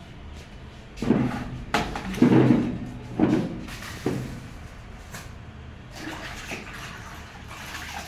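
Wet cloth being worked over a concrete floor with a plastic bucket of water: a handful of loud wet splashes and swishes over about three seconds, then quieter wiping.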